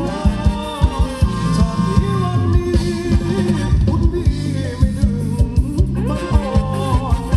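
Live band playing Thai ramwong dance music, with singing over a steady drum beat and a bass line.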